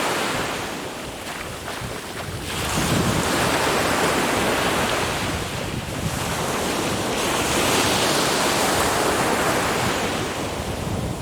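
Sea waves breaking on a beach, the surf swelling and easing twice, with wind buffeting the microphone.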